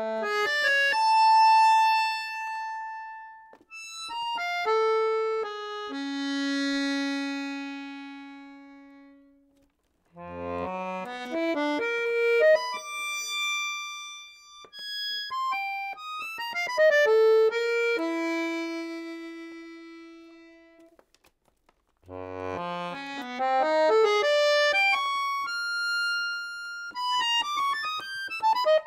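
Chromatic button accordion playing three phrases of fast note runs, each ending in a held note that fades away, with short silences between them about ten and twenty-one seconds in.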